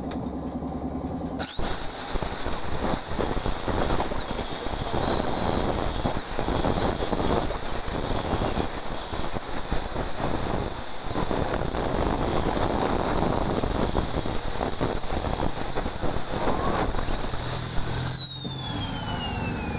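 Electric angle grinder started about a second and a half in, its whine rising to a high steady pitch as it cuts down the bolts fitted into a motorcycle crankcase. Near the end it is switched off and the whine falls away as the disc spins down.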